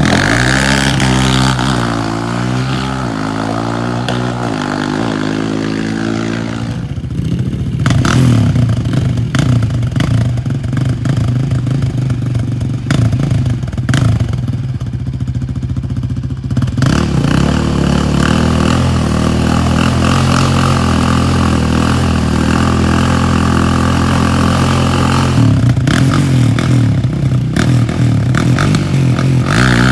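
ATV engine running under way, revving with its pitch rising and falling for the first several seconds. It then gives way to a rough, clattering stretch before settling into steady running.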